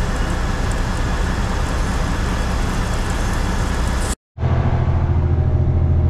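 Granular fertilizer pouring from an overhead load-out spout into a hopper-bottom trailer, a steady rushing hiss. About four seconds in it cuts off abruptly, and a truck's engine is heard running steadily from inside the cab as a low hum.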